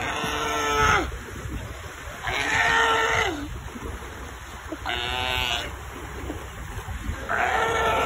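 Sea lions calling: four drawn-out, pitched calls of about a second each, two to three seconds apart, the first two dropping in pitch at the end, over the low wash of surf.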